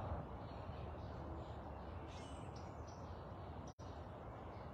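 Faint steady outdoor background rumble with a few short distant bird calls about two seconds in. The sound cuts out for an instant near the end.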